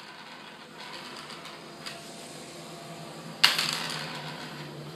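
A wooden pencil hits a wooden tabletop with one sharp clack about three and a half seconds in, after a couple of faint taps.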